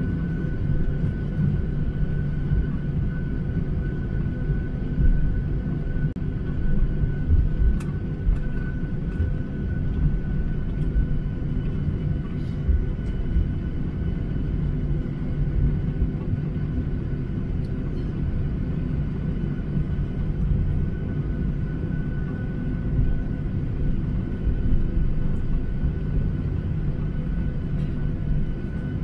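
Cabin noise inside a Boeing 737-800 taxiing: a steady low rumble from the airframe and its two CFM56-7B turbofan engines running, with a thin constant whine over it.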